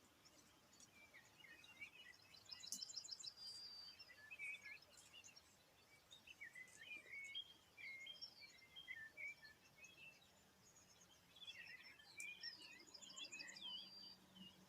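Faint dawn birdsong from several small songbirds, with many short chirps and warbled phrases. One bird sings twice, about two seconds in and again near the end: each time a rapid, evenly spaced trill that ends in a short held note.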